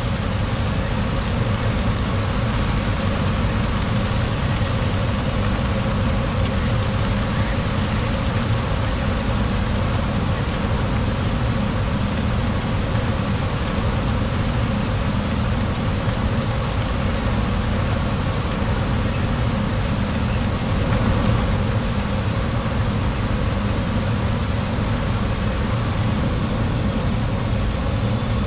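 Steady rush of airflow and engine noise on the flight deck of a Boeing 737-800 on final approach, with the landing gear down and flaps at 30. A few faint steady tones sit on top of the noise.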